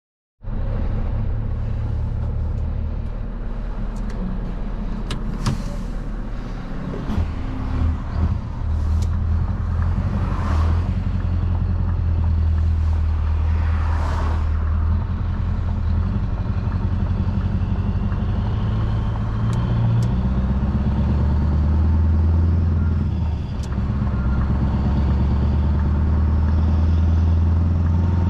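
Scania R620's V8 diesel running through an open, straight-piped exhaust, its note rising and falling in steps several times. A few short clicks and a couple of brief hisses sit over the engine.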